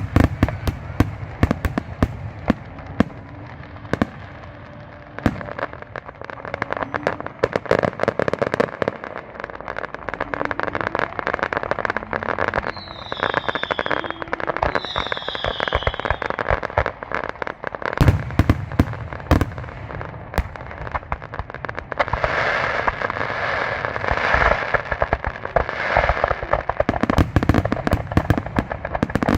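Fireworks going off: a dense run of sharp pops and bangs, with two falling whistles about halfway through and a crackling stretch near the end.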